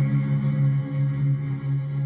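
Drone music: low tones held steady, with many overtones.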